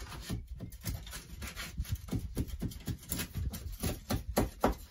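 Water-rotted wood framing in a motorhome's cabover being pulled and scraped out by hand: a busy run of irregular crunching, cracking and scraping strokes, with a few short creaks.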